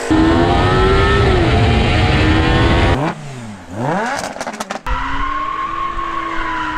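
Performance engines revving in quick succession: a loud engine climbing through the revs, then after an abrupt change a note that drops and climbs again with a few sharp cracks, then a steadier engine note slowly rising.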